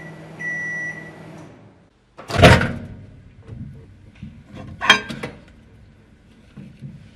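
Samsung microwave oven humming as it runs and sounding one last high beep of a repeated series; the hum stops about a second and a half in. Then two loud knocks on a wooden tabletop, about two and a half and five seconds in, with light handling clicks between and after.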